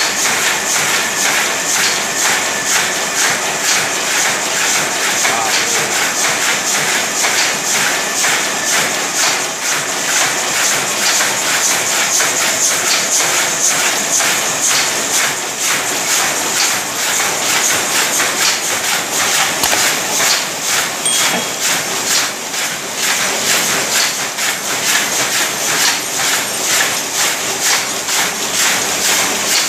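Wire mosquito-net weaving looms running, a steady rapid metallic clatter of the machines beating in the mesh.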